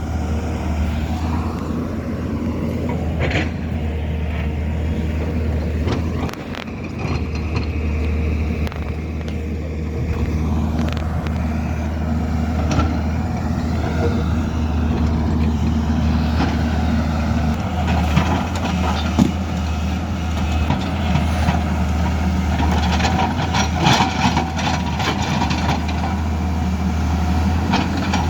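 Heavy earthmoving machine's diesel engine running steadily under load with a deep drone, with scattered metallic clanks and rattles that grow more frequent in the second half.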